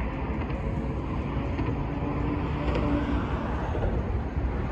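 New York City Subway train running on elevated track: a steady rumble with a faint, even motor whine over it.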